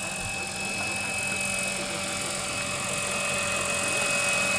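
Radio-controlled scale Bell 212 model helicopter in flight, a steady high whine from its motor and rotors, slowly growing louder.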